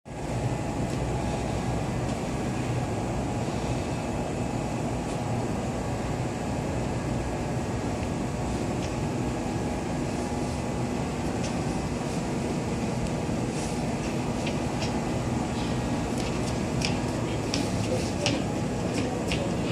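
Steady hum of a Kintetsu electric express train standing at the platform, its auxiliary equipment and air conditioning running. In the second half, light clicks and footsteps of passengers walking along the platform.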